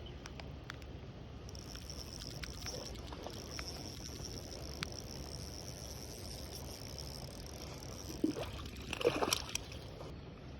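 A brief burst of water splashing and sloshing about eight to nine and a half seconds in, the loudest sound here. Under it run a steady low hum, scattered light clicks and a thin high steady whine from about a second and a half in until just before the splash.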